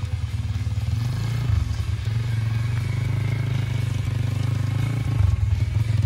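Small engine of a mini dirt bike running as it is ridden through deep snow, with a steady low putter that grows louder about five seconds in as the throttle opens.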